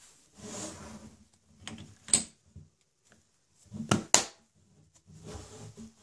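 Cotton-gloved hands handling a silver coin and a plastic coin tube: four bouts of fabric rustling and rubbing. A sharp click comes about two seconds in and two more just before and after four seconds; the last is the loudest.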